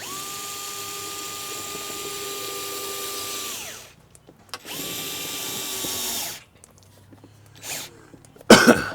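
Electric screwdriver driving door-panel screws: a steady motor whine for about three and a half seconds that winds down, then a second shorter run of about a second and a half. A short, loud knock comes near the end.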